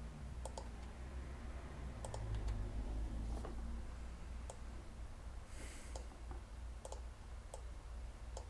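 Scattered computer mouse clicks, about one every second or so, over a low steady hum, with a brief soft hiss a little past the middle.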